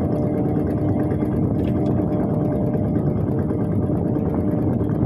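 Small boat's engine running steadily at cruising speed, a constant drone with a steady pitch.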